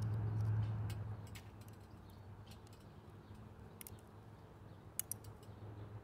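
Faint scattered ticks and clicks, with one sharper click about five seconds in. A low steady hum fades out about a second in.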